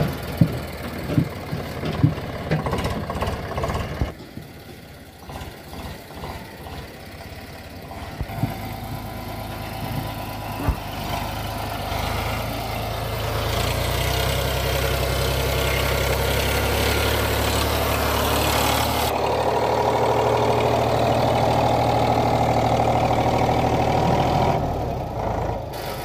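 Eicher 485 tractor's three-cylinder diesel engine working under load as it pulls a loaded trolley over rough ground. Sharp metallic clanks and knocks sound through the first few seconds, and the engine drone becomes louder and steadier in the second half.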